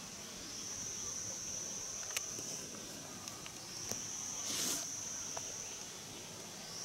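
Steady high-pitched insect chorus that dips and swells, with a few sharp clicks and a short noisy rustle about four and a half seconds in.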